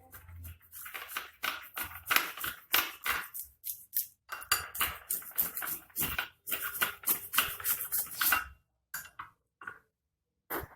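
Knife chopping ginger on a cutting board: a quick run of sharp knocks, several a second, thinning to a few separate ones near the end.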